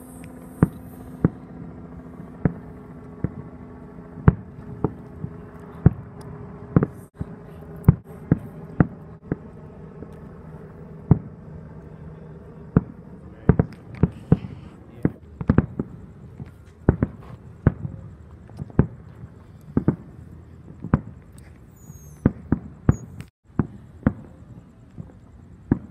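Aerial fireworks bursting: a long, irregular series of sharp bangs, at times several a second, coming thickest around the middle and again near the end.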